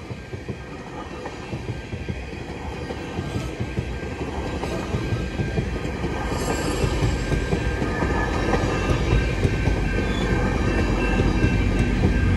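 GO Transit bilevel passenger train rolling through a level crossing, its wheels rumbling and clattering on the rails, with a few thin steady high tones above. The sound grows steadily louder throughout.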